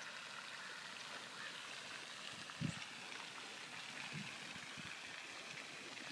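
Faint steady outdoor hiss, with a few soft low thumps, the loudest a little before halfway.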